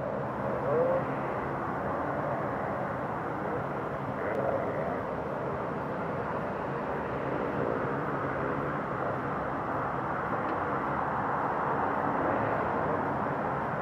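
Distant Boeing 737-300 on final approach, its CFM56-3 turbofan engines a steady, even jet noise.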